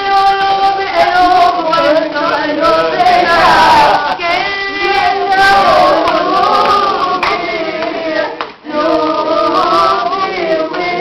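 Men and women singing Lebanese mijana and ataba folk song together, long held notes with ornamented, wavering lines; the singing breaks off briefly about eight and a half seconds in, then resumes.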